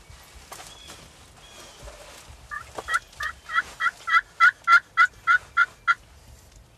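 Turkey yelping: a run of about a dozen evenly spaced yelps, roughly three a second, starting about two and a half seconds in, growing louder, and stopping about six seconds in.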